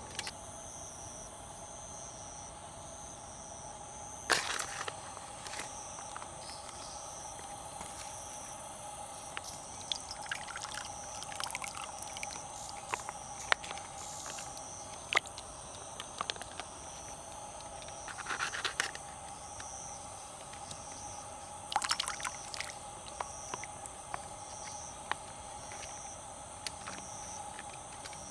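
Insects chirring steadily in the background, broken by scattered sharp clicks and a few short clattering bursts of handling noise.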